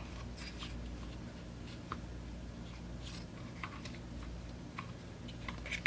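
Faint, scattered clicks and taps of small chainsaw carburetor parts being handled and fitted, with a steady low hum underneath.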